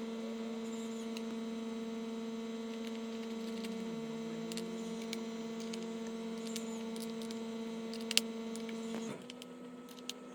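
Steady electrical hum with a buzzing stack of overtones, dotted with faint light clicks and taps. A sharper click comes about eight seconds in, and the hum drops in level shortly after.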